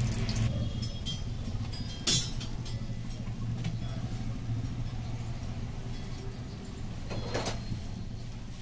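Steady low kitchen hum around a pot of hot ghee on a gas stove, with a sharp knock on the aluminium pot about two seconds in and a fainter one about seven seconds in, as semolina is tipped into the ghee.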